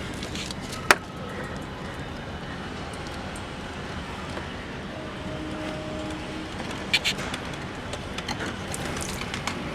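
Steady outdoor traffic hum with a few sharp clicks and taps from handling a plastic pipe and tape while the pipe is fitted to a water pump. The loudest click comes about a second in, two more come close together about seven seconds in, and several small ones follow near the end.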